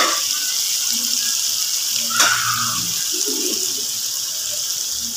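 Chana dal sizzling as it fries in oil in a metal karahi, a steady hiss, with a single short clink about two seconds in.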